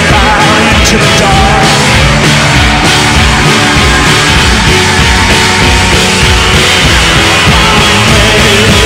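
Loud background rock music.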